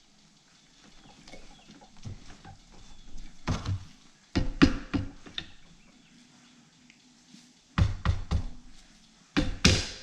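Handling and fitting seat-track hardware and its release rod gives short clusters of clanks and knocks: one a few seconds in, a run of several about halfway, and two more groups near the end.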